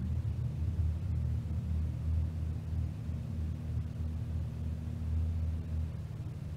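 Cessna 162 Skycatcher's four-cylinder Continental O-200 engine idling as the plane taxis slowly, a steady low drone heard from inside the cabin.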